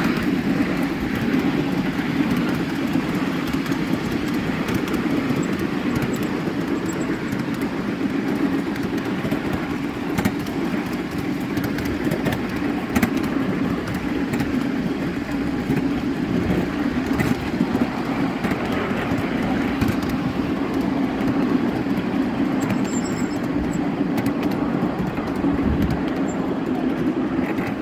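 Ride-on miniature railway train running along its track: a steady rumble with occasional clicks.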